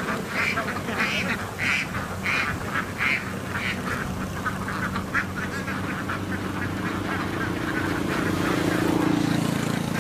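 A large flock of laying ducks quacking: many short, overlapping quacks all the way through. A steady low hum grows louder over the last few seconds.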